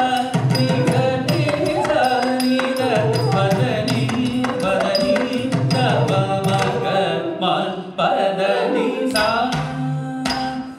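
Carnatic music for a Bharatanatyam jatiswaram: a vocalist singing swara syllables (pa, da, ni) with a flute melody, kept in time by mridangam strokes.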